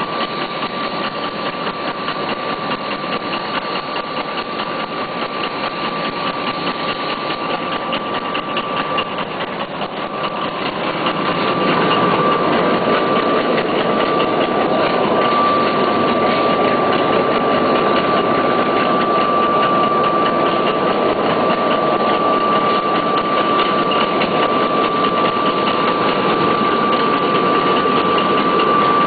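Mini handkerchief (pocket tissue) machine running: a fast, even mechanical clatter with a steady whine, getting louder about a third of the way in.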